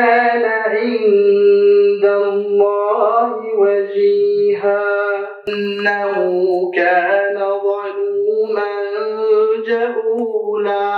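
A man reciting the Quran in the melodic chanted style, one unaccompanied voice holding long, ornamented notes and pausing briefly between phrases.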